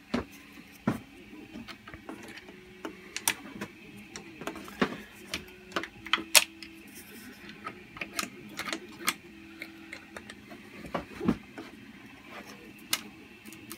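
Irregular clicks and light knocks of a 3D-printed plastic door and its hinge arm being handled and fitted by hand, the loudest click about six seconds in.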